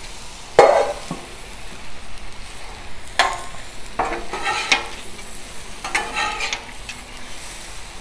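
Shrimp and rice noodles sizzling on a hot steel flat-top griddle, with sharp clanks and scrapes from metal spatulas and a steel dome cover; the loudest clank comes about half a second in.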